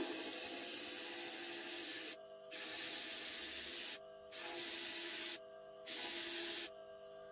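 Wooden knife handle being shaped on a bench disc sander: the wood is pressed against the spinning sanding disc in four passes, each a loud, even gritty hiss of one to two seconds, with short quieter gaps as it is lifted off.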